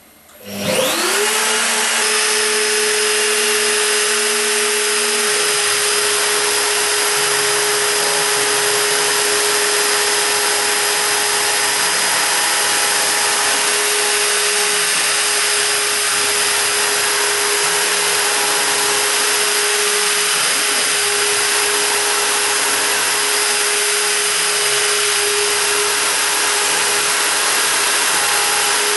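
High-Z S-1000 CNC router's spindle spinning up within the first second to its set speed of 25,000 rpm, then running steadily with a high whine over loud rushing noise as a 0.7 mm engraving bit mills into a wooden sign blank.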